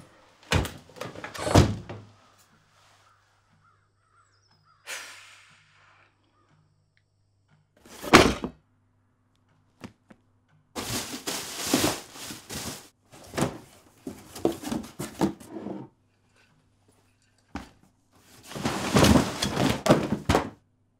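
Household handling sounds: a series of thuds and knocks as books and bags are set down, the loudest thud about eight seconds in, with longer stretches of rustling and scraping. A faint, steady low hum runs underneath.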